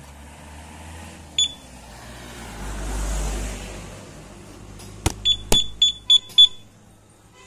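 Aftermarket motorcycle security alarm beeping in response to its remote fob: one short high chirp about a second and a half in, then two sharp clicks and a quick run of about five high beeps near the end.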